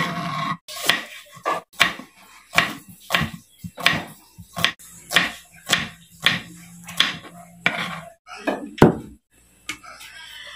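Kitchen knife chopping garlic cloves and red onion on a wooden cutting board: a steady run of sharp knocks, about one every 0.6 seconds, that stops about nine seconds in.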